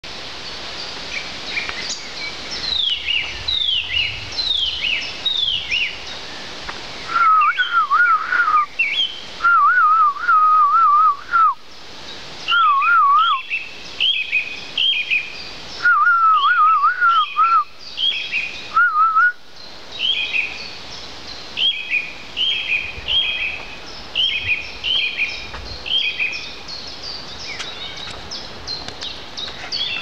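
Songbirds singing in woodland: short high whistled notes falling in pitch, repeated again and again, with louder, lower warbling whistled phrases in several bursts between about a quarter and two-thirds of the way through.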